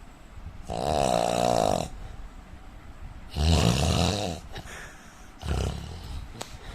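A man snoring: three snores about two and a half seconds apart, the first long with a wavering pitch, the last shorter.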